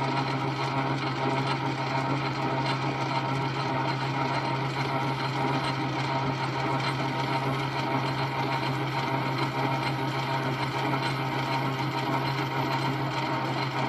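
South Bend 9-inch Model A metal lathe running steadily on its leather flat drive belt, a constant motor hum with a whir of belt and spindle.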